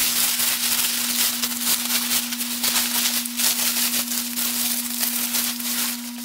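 Synthetic cloth of a mower leaf drag bag rustling and crinkling continuously as it is bunched up and turned inside out by hand.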